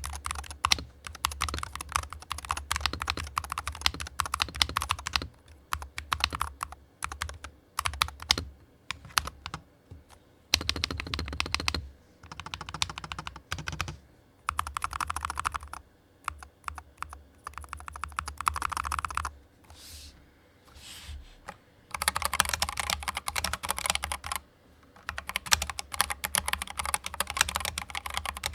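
Keyboard sound test: rapid typing on a keyboard, dense runs of key clicks in several bursts separated by brief pauses.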